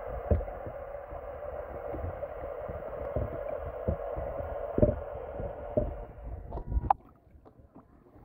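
Muffled underwater sound picked up by a submerged camera in a lake: a steady dull rush with irregular low thumps. About six and a half seconds in, a few sharp clicks come and the sound drops away to near quiet.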